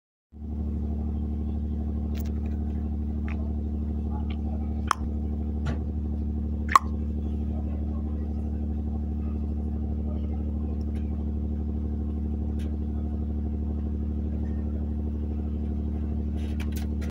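A ship's engine running at a steady speed, a low even drone. Two short sharp knocks stand out about five and seven seconds in.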